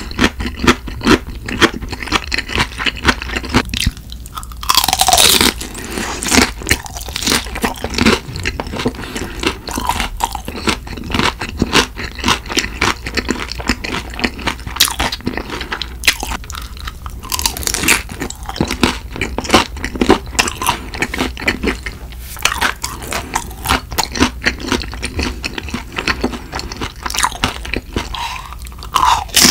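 Close-miked chewing and crunching of food, dense with quick wet mouth clicks, as pan-fried dumplings and Spam are eaten. A longer hissing sound comes about five seconds in and again near the end.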